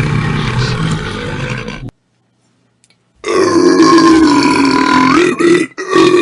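Loud human burps: a low, rough burp that cuts off about two seconds in, then after a second of silence a long, drawn-out belch holding a steady pitch, which breaks off briefly near the end as another burp begins.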